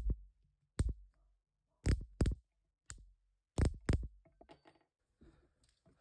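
Sharp clicks and knocks from handling a cordless drill and wood screws: one about a second in, then two quick pairs around two and four seconds in, with faint ticks after.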